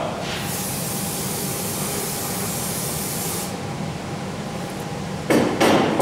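Aerosol can of mold-release agent spraying into a steel compaction mold, a steady hiss lasting about three seconds. Near the end come two short, louder noises.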